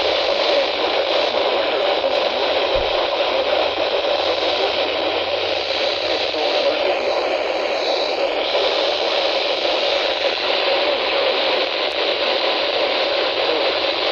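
Steady static hiss from a NOAA Weather Radio receiver with no intelligible broadcast coming through.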